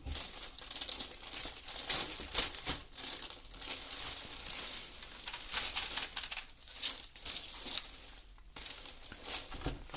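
Plastic packaging crinkling and crackling as it is handled, in a dense, irregular stream of crackles.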